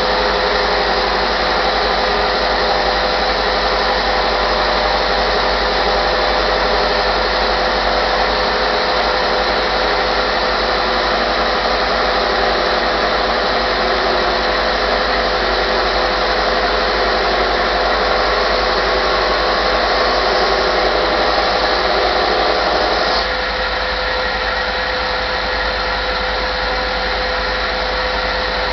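Homemade belt-driven thickness sander running with its conveyor belt and dust-extraction vacuum on, sanding a purpleheart strip: a steady motor whine over a loud, even rush of belt and vacuum. The rush eases a little about 23 seconds in.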